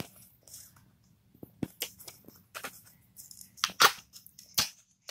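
Small cardboard blind box and its packaging handled and pulled open by hand: scattered scrapes, clicks and crinkly rustles, with two louder sharp ones near the end.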